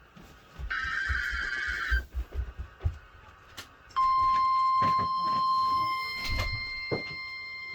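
Emergency Alert System header: a burst of warbling digital data tones lasting about a second and ending around two seconds in. It is followed by a pause with a few low thumps, then, about four seconds in, the steady weather-radio warning alarm tone starts and holds.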